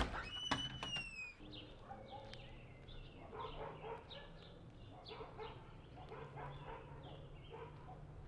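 A door latch clicks and the door swings open with a short falling squeak. Then birds chirp faintly outdoors, with a dog barking in the background.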